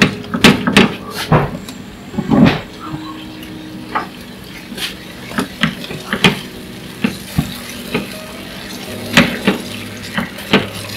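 A spatula stirring a thin chili sauce in a nonstick frying pan: irregular knocks and scrapes of the spatula against the pan, with the liquid swishing. The knocks come thickest near the start and again near the end.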